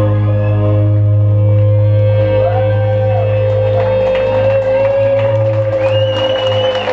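Live prog rock band holding a long sustained chord: one high note held over a steady low bass drone, with keyboard swells rising and falling above it.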